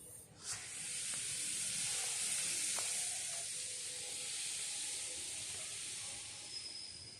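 Puffing Billy steam locomotive letting off steam: a loud, steady hiss that starts suddenly about half a second in and fades near the end, with a faint high tone near the end.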